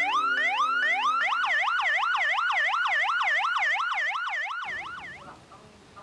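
Emergency vehicle siren sweeping up in pitch over and over, switching about a second in to a faster up-and-down yelp, then fading away near the end.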